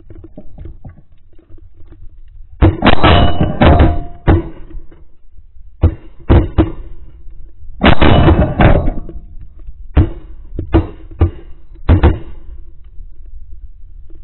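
Volley of shotgun fire from several duck hunters shooting together: a dozen or more loud shots in ragged clusters, heaviest about three seconds in and again about eight seconds in, with a faint wind haze between them.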